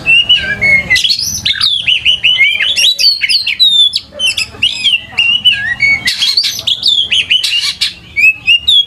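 Oriental magpie-robin (kacer) singing in full, nonstop song: a fast, varied run of clear whistles and slurred chattering notes mixed with a few harsh notes, pausing only briefly.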